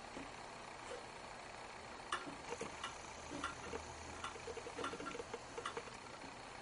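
Faint, irregular light clicks, a few a second from about two seconds in, as a magnet is moved to and from a reed switch and a Magnasphere switch.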